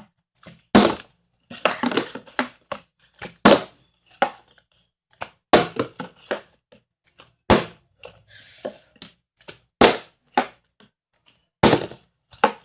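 A bottle being flipped onto a hard floor again and again: a dozen or so irregular knocks as it lands, bounces and topples, with a short rustling hiss a little past the middle.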